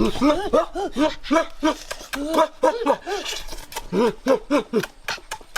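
An animal giving a rapid run of short whining yelps, each rising and falling in pitch, several a second, mixed with sharp clicks.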